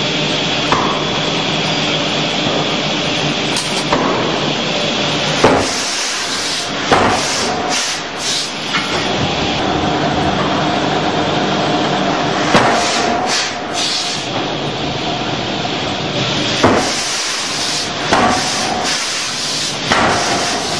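Béché 30-ton counterblow hammer forging a hot workpiece: about a dozen heavy blows at uneven spacing, some in quick pairs and others several seconds apart, with bursts of hiss alongside. A steady loud shop drone runs underneath.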